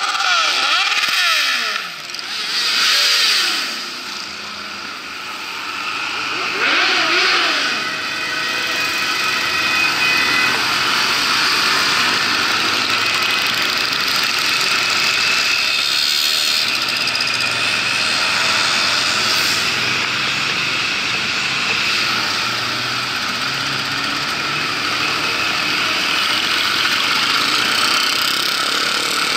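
Many motorcycle engines running together as a column of bikes rides past, a dense steady engine din with revving. A wavering tone rises and falls briefly near the start and again about seven seconds in.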